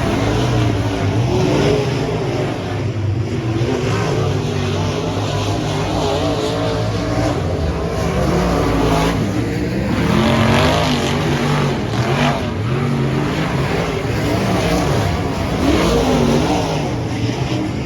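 Several dirt track race car engines running on the track, their pitch rising and falling as they rev up and back off.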